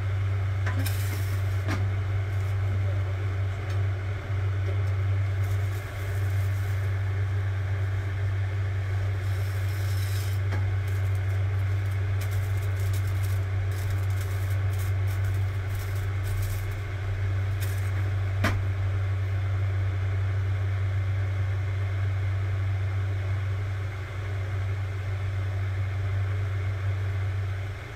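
Steady low hum with a faint hiss from a kitchen gas stove whose grill is toasting bread, with a few light clicks and clinks as the grill tray and slices are handled.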